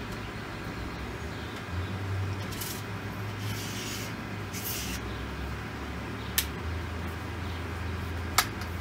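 Sections of a three-piece paddle's shaft being slid and handled together, with brief swishing and two sharp clicks, about six and eight seconds in, as the sections lock in place. A low steady hum runs underneath.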